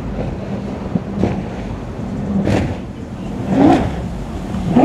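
Powerboat engines running through rough water, with repeated splashes of the hulls hitting waves about once a second.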